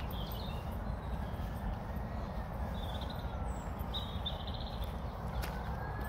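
A distant siren wailing slowly up and down, over a steady low rumble, with short bird chirps a few times.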